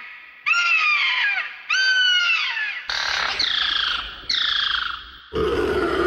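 Pterosaur screech sound effect: a run of about five shrill calls, each sliding down in pitch, with a low rumble beneath the later ones.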